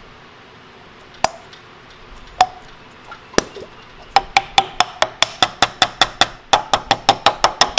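Hand ratchet clicking as it runs the threaded crankshaft cover of a Honda CA160 engine back on: three lone clicks, then about four seconds in a quick, even run of about six clicks a second.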